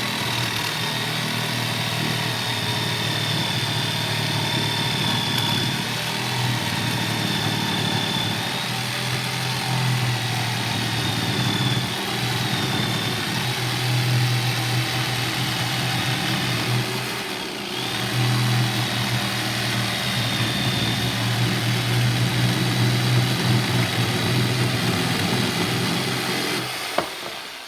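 Electric jigsaw cutting through a piece of timber, its motor and reciprocating blade running continuously, with a brief dip about two-thirds of the way through and winding down near the end. The saw is struggling in the slightly wet wood, which the user puts down to the blade.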